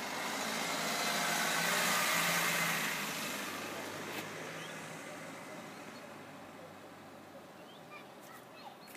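A passing vehicle, its noise swelling to a peak about two seconds in and then slowly fading away.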